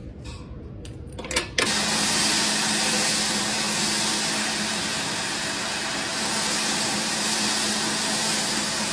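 A reel mower's cutting cylinder starts up suddenly about a second and a half in and spins steadily, driven by a motor with a constant hum and a loud grinding hiss, while a brush applies paste to the turning reel so it laps against the bed knife to sharpen it. A few handling clicks come before it starts.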